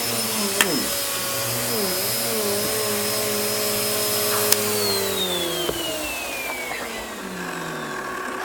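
Bissell vacuum cleaner running, its motor pitch dipping briefly under load. It is then switched off with a click about halfway through, and the motor's whine falls steadily as it winds down.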